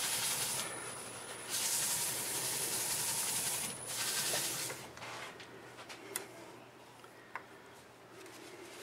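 Paper towel rubbing against a green cherry bowl turning on the wood lathe, a rushing hiss in two stretches, the second louder, as the mineral-oil slurry from wet sanding is wiped off. About halfway through a thin high whine stops and the rubbing dies away, leaving a few faint clicks of handling.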